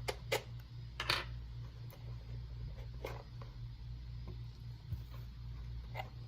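A few light clicks and knocks of plastic packaging and camera parts being handled and set down, the loudest about a second in, over a steady low hum.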